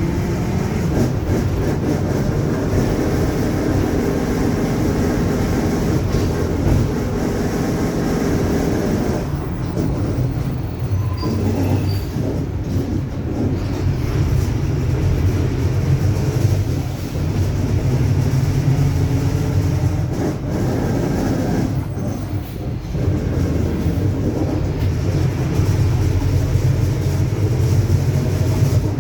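Mercedes-Benz OF-1721 bus under way: the diesel engine and drivetrain run steadily, with the differential droning, and a faint whine drifts up and down in pitch.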